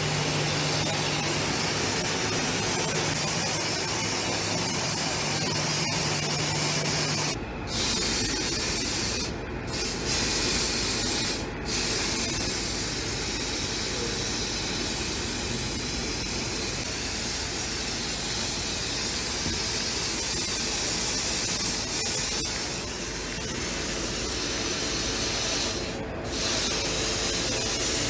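Steady hiss of rushing air from compressed-air blow-gun cleaning, with a Ruwac DS 6 industrial dust extractor sucking through its hose. A low hum under it stops about seven seconds in, and the hiss breaks off briefly a few times.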